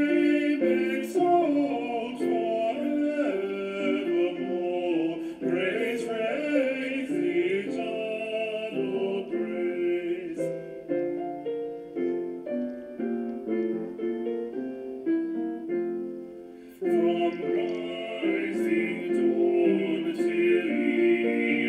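Hymn music at Communion: a singing voice with vibrato over piano accompaniment. About ten seconds in the voice drops out for a short piano interlude, and it comes back about seven seconds later.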